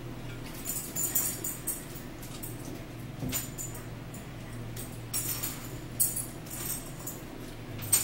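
Metal forks clinking and scraping against plates of food in short bursts, the sharpest clink about six seconds in, over a steady low hum.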